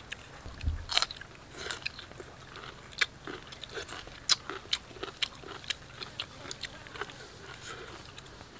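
Close-up eating sounds: wet mouth clicks, smacking and chewing, with fingers tearing at grilled fish flesh and charred pineapple. Irregular sharp clicks and crackles come several times a second.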